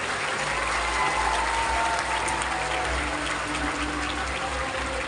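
A large crowd of people applauding, a steady dense clapping.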